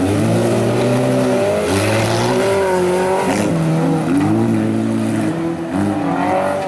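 Stock cars racing on a dirt track. Their engines rev hard and climb in pitch again and again, then drop as the drivers lift off or change gear.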